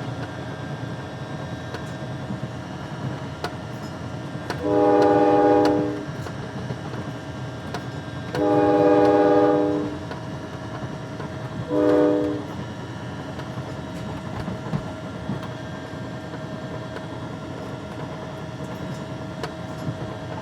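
Amtrak train passing with a steady low rumble. Its air horn sounds a chord in two long blasts and then a short one, starting about four and a half seconds in.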